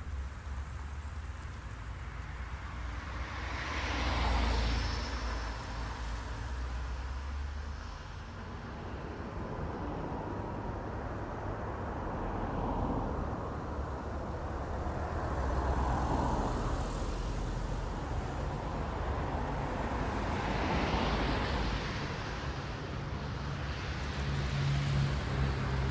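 Road traffic: cars passing one after another, each a swell of engine and tyre noise that rises and fades, over a steady low rumble.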